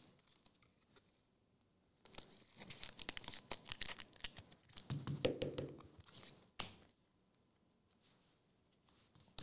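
A foil trading-card pack wrapper being torn open and crinkled in the hands. It starts about two seconds in and goes on for about four and a half seconds, ending with a single sharp click.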